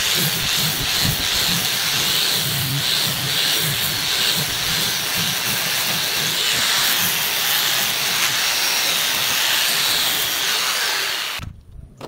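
Electric angle grinder fitted with a sanding disc, running at full speed and sanding across a wooden board: a loud, steady hiss of abrasive on wood over the motor's drone. It stops abruptly near the end.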